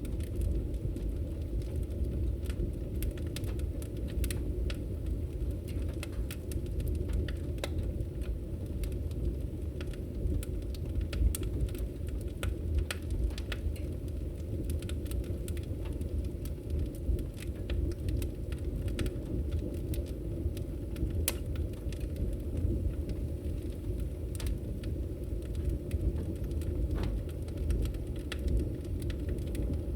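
Wood logs burning in a fireplace: a steady low rumble of the flames with frequent sharp, irregular crackles and pops.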